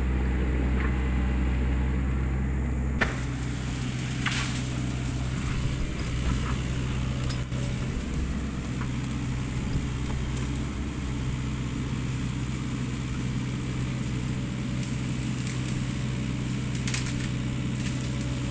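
Wood fire in a split-log stove crackling under a pot, with scattered sharp pops and a knock about three seconds in, over a steady low rumble.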